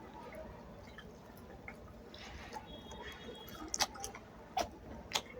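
Close-up eating sounds of someone chewing a mouthful of rice and fish curry: soft wet smacking and small mouth clicks, with three sharper smacks in the last couple of seconds.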